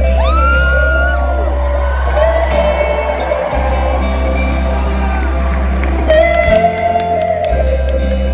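Live rock band: electric guitar playing bending notes over sustained bass notes and drums, recorded from the audience.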